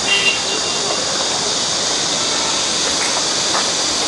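Steady high-pitched hiss, even throughout, with a short high chirp right at the start.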